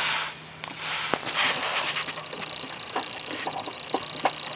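Clothing rustling and scraping against the ground as someone works on his back under a car, then a fast run of small clicks from about halfway through.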